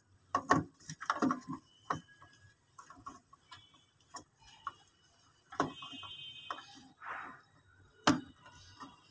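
Plastic plug-in wiring connectors being pushed and seated into a DSE 702 generator controller: irregular clicks and knocks of plastic and the controller housing, sharpest about half a second and about eight seconds in.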